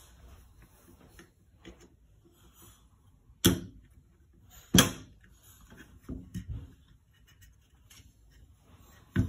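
Brass-headed hammer tapping out the rear pin of a Sig Sauer P365 XL's frame: two sharp taps about a second and a half apart, then a few lighter knocks, and one more sharp tap near the end, with small clicks of handling between.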